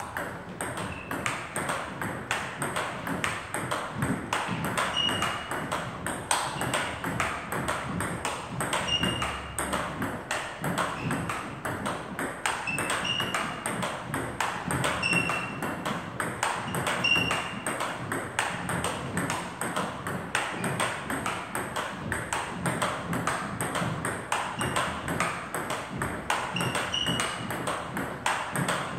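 Fast, steady table tennis rally: the celluloid-type ball clicks off the rubber paddles and bounces on the table several times a second. Short high squeaks from shoes on the wooden floor come now and then as the two players switch places.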